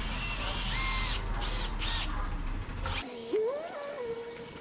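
Cordless drill driving a screw into lumber: the motor whines up to speed and holds, then runs in two short bursts that cut off abruptly. About three seconds in it stops, leaving a fainter wavering tone that settles into a steady hum.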